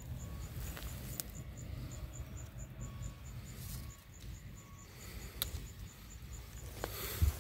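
Orchard ambience: a faint high chirp repeated evenly, about four times a second, over a low wind rumble on the microphone. A few light clicks and leaf rustles come from the hand and camera moving among the branches, with a louder bump near the end.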